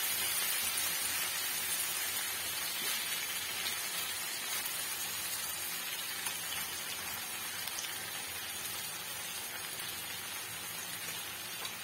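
Spiced masala gravy sizzling steadily in a frying pan as whole fried koi (climbing perch) are laid into it; the sizzle slowly dies down.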